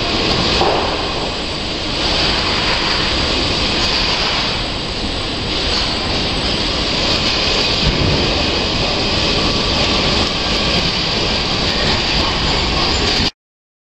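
Car assembly line machinery running as a steady, loud din of mechanical noise, which cuts off suddenly near the end.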